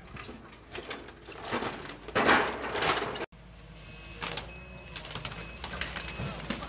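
Sheet metal of a scrapped car crunching and clattering as an excavator handles and crushes it. About two seconds in there is a loud crash lasting about a second. The sound cuts off suddenly just after three seconds, then scattered clicks and crackles of bending metal follow.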